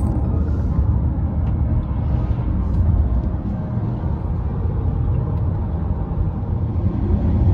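Steady low rumble of road and engine noise heard inside the cabin of a car moving at highway speed.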